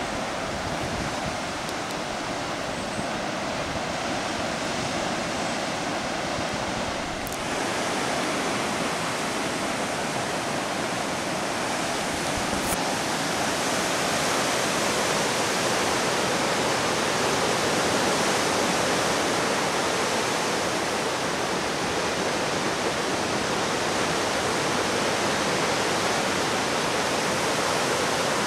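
Steady roar of ocean surf breaking on a beach and around sea stacks below, heard as an even rushing noise. Its tone shifts slightly about seven seconds in.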